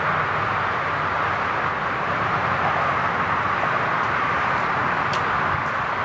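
Steady, even static hiss from the audio output of a Gigahertz Solutions HF35C high-frequency analyzer held near a cell tower, the tower's radio-frequency transmissions made audible as noise.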